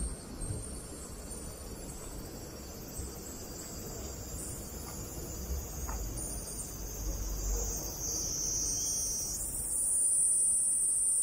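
Cicadas in the street trees: a steady high-pitched buzz that shifts higher and grows louder about ten seconds in, over a low rumble.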